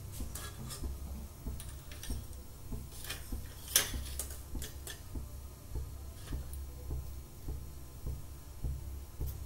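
Stainless-steel kadai with oil heating on a burner: scattered small ticks and pops at irregular intervals, one louder pop about four seconds in, over a low steady hum.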